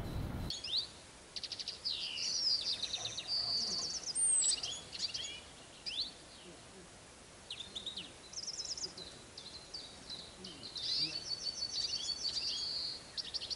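Small songbirds singing: high, rapid jingling trills and twitters in two long runs, with a short lull about six seconds in.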